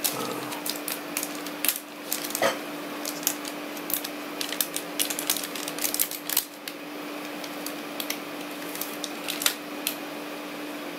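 A plastic anti-static bag crinkling and crackling as an M.2 SSD is worked out of it by hand, the crackles thick for the first seven seconds and sparser after. A steady low hum runs underneath.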